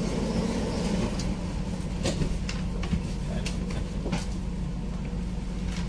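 Dubai Metro train running along the track, heard from inside the carriage: a steady low rumble with a hiss, and a few light clicks in the middle.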